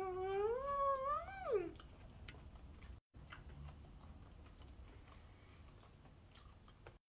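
A woman's drawn-out, whiny "mmm" of enjoyment, hummed with her mouth full, rising in pitch over nearly two seconds. Faint chewing and small mouth clicks follow.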